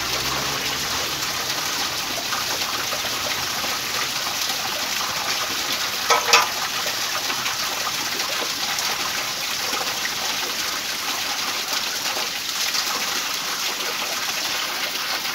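Water gushing from a chute and splashing onto the paddles of a flat wooden mill wheel, a steady rush. A brief louder burst comes about six seconds in.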